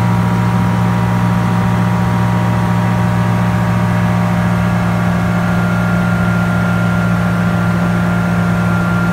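Steady drone of a light aircraft's Viking auto-conversion engine and propeller in flight, holding one constant pitch with a thin steady whine above it.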